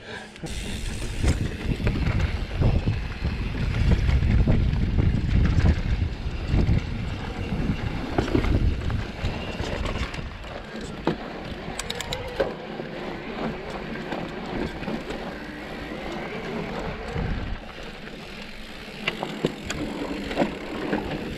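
Specialized Turbo Levo e-mountain bike riding over a trail: tyre rolling noise and rattles with wind rumbling on the microphone. The sound is louder in the first half, with a few sharp clicks near the middle.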